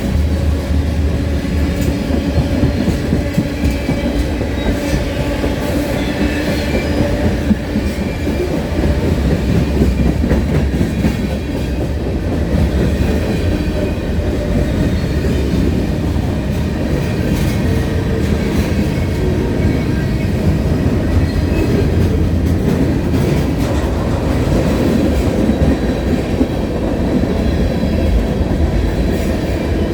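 CN freight train's cars rolling steadily past, with a continuous rumble and the clickety-clack of wheels over rail joints.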